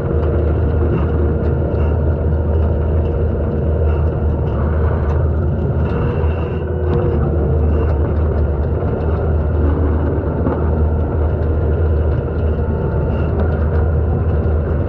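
Takeuchi TL250 compact track loader's diesel engine running steadily under load, driving a hydraulic skid-steer brush cutter through brush: a loud, even drone with a faint steady whine above it.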